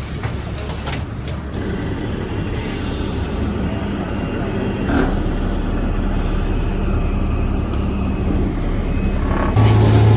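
Heavy vehicle engine running steadily, a continuous low rumble that grows slightly louder.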